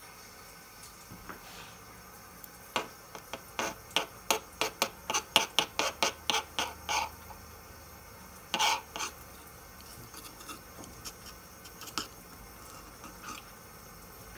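Spatula scraping and tapping on a hard countertop while mixing a small pile of alginate powder with water: a run of quick strokes, about three a second, for a few seconds, then one louder scrape and a few faint taps.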